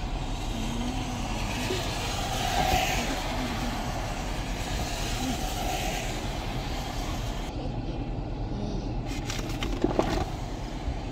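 Steady road and engine noise of a car being driven, heard from inside. The sound changes abruptly about two-thirds of the way through, and a few sharp knocks come near the end.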